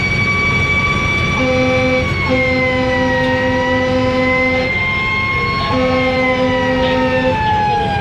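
A fire engine's siren wailing with a slow rise and fall, sliding down toward the end, heard from inside the cab over the truck's engine and road rumble. Three air horn blasts sound over it, the middle one the longest.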